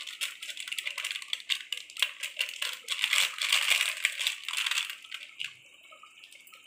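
Plastic spice packet crinkling and rattling as masala powder is shaken out of it into the pot, a dense crackle that stops about five seconds in and leaves a faint hiss.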